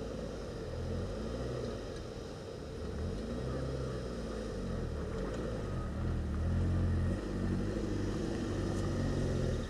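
Small hatchback car's engine running as it drives up a rough dirt road toward the listener, its low pitch rising and falling with the throttle.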